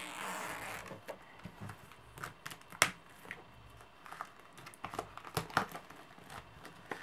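Hands handling a shrink-wrapped card-game box, with faint crinkling of the plastic wrap and scattered light clicks and taps. One sharper click comes near the middle.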